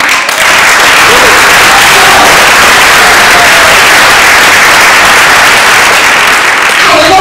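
Large audience applauding, a loud, steady wash of clapping.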